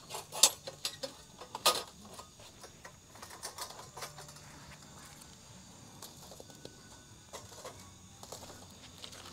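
A quick run of sharp clicks and knocks in the first two seconds, then scattered faint ticks.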